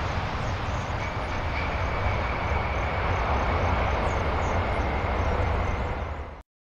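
Boeing 747's four jet engines during landing and rollout: a steady low rumble under a rushing noise, with a faint high whine, cutting off suddenly near the end.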